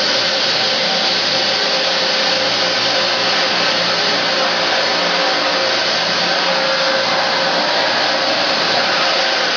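Automatic bamboo chopstick-blank cutting machine running with a loud, steady whirring hiss, a few faint steady hums in it and no separate cutting strokes.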